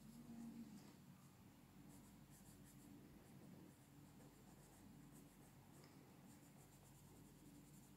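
Faint scratching of a colored pencil on coloring-book paper, in quick repeated shading strokes.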